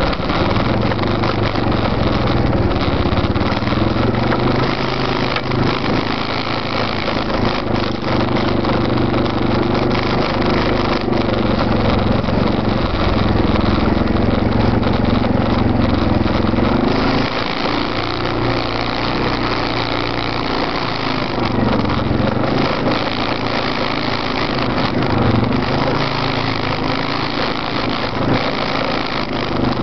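Arctic Cat ATV engines running on a trail ride. The loudest is the 650 H1 that carries the rack-mounted camera, with the 650 V2 following close behind. The engine pitch rises and falls several times as the throttle is worked at low trail speed.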